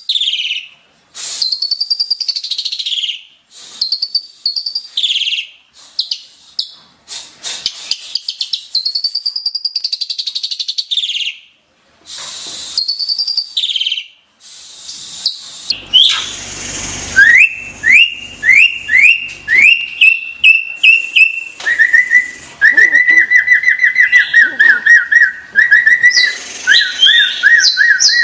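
Asian pied starling (jalak suren) singing: a run of loud arching whistles, each about a second long, then a harsh noisy burst about halfway through, followed by quick rising notes and a lower rapid rolling trill.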